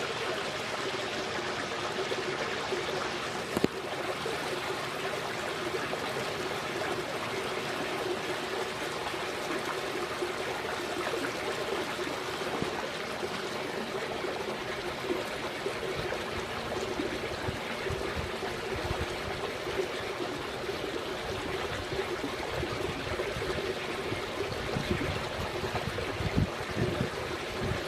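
Steady trickling, running water in a swimming pool.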